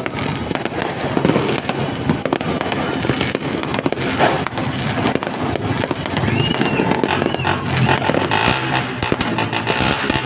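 Fireworks going off: a steady mass of crackling and popping with frequent sharp bangs throughout.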